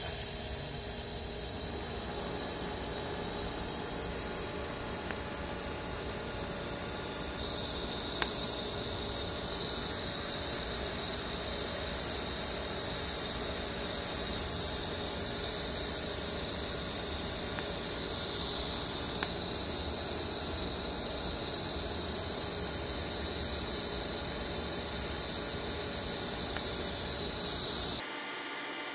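TIG welding arc on thin-wall stainless steel tubing: a steady high hiss that briefly dips about two thirds of the way through, then cuts off suddenly near the end as the arc is broken.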